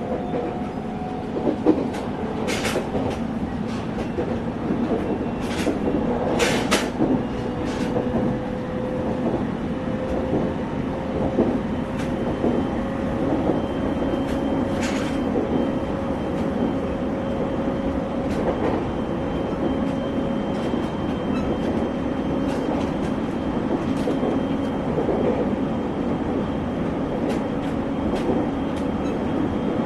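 Interior running sound of a JR East 701 series electric train's motor car under way: steady rolling noise with a faint motor whine that rises slowly in pitch over the first dozen seconds and then holds steady. Sharp clicks from the wheels over rail joints come through, mostly in the first half.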